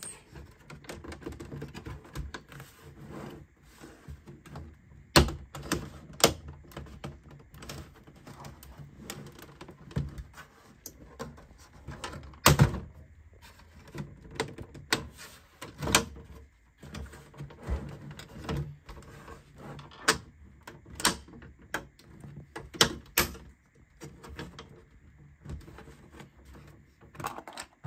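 Plastic back cover of a Dell OptiPlex 7440 all-in-one being pulled off by hand: irregular sharp clicks and snaps of its retaining clips coming loose, with handling noise between them. The clips are hard to release.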